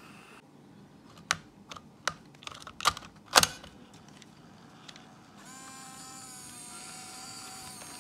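A VHS-C camcorder's cassette holder being handled, giving a quick run of sharp plastic clicks and snaps, then about five and a half seconds in the camcorder's tape mechanism motor starts and whirs with a steady whine.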